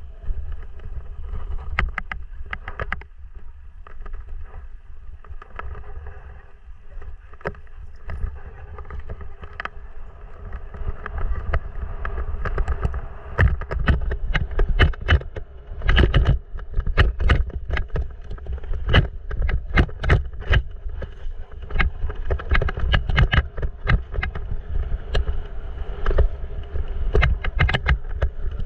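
Mountain bike riding down a dirt singletrack: wind rumbles on the camera microphone while the bike rattles and clatters over the trail's stones and bumps. The knocks come thicker and louder from about halfway through, where the path turns rocky.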